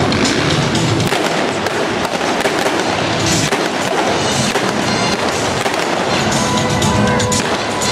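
Rapid pyrotechnic bangs and crackling, many in quick succession, over loud music.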